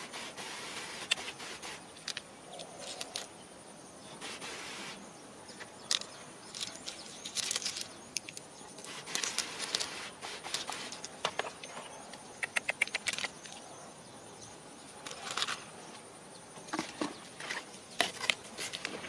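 Short hissing spritzes from a hand-pump spray bottle misting water, mixed with clicks of stones being picked up and set down. Near the end, loose soil and pebbles rustle and patter as they are scooped by hand.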